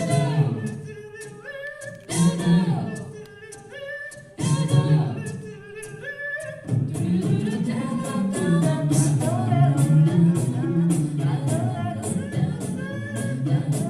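A cappella group singing in close harmony over a sung bass line, with steady ticking vocal percussion. The phrases break off and restart at about two and four seconds in, and the full group comes in together from about seven seconds in.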